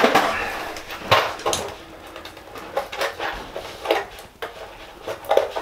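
A packet of small screws being handled: irregular clicking and rattling of screws with crinkling of the packet, loudest just at the start and about a second in.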